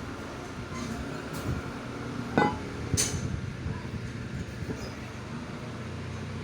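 Metal engine parts being handled during a teardown: a clink with a brief ring about two and a half seconds in, then a sharp click, over a steady low hum.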